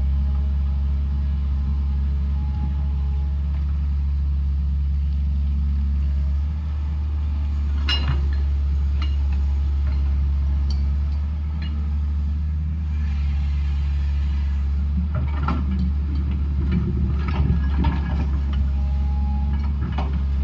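Heavy diesel engine of a construction machine running steadily at a constant speed, with a few sharp knocks and clanks from the machine's work about eight seconds in and again in the second half.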